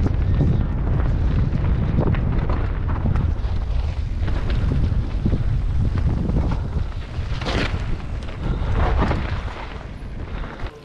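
Mountain bike riding down a rough trail: wind buffets the microphone in a heavy rumble, with the rattle and knocks of the bike over rocks and roots. It eases off near the end.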